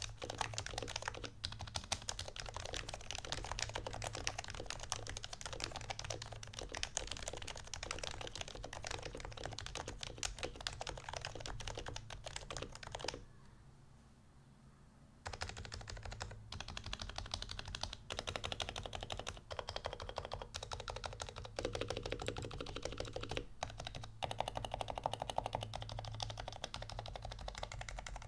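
HHKB Pro 2 Topre keyboard, with aged domes, lightly lubed sliders and silencing rings, being typed on fast in a dense run of soft keystrokes. The typing stops for about two seconds near the middle, then resumes.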